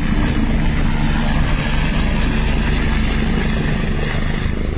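Helicopter at close range, its rotor and turbine making a loud, steady low drone over a heavy rush of noise.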